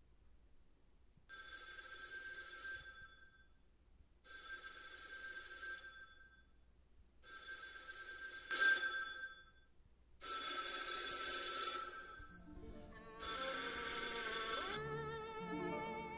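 Telephone ringing five times in an even ring pattern, each ring about a second and a half long and about three seconds apart, with a sharp click during the third ring. Music comes in under the last ring and turns into wavering bowed strings as the ringing stops.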